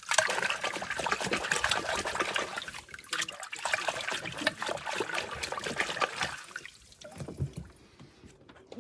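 Water splashing and trickling as a boat's water-inlet filter is swished and flushed in lake water to rinse out clogging wood chips. The sound dies down about six and a half seconds in.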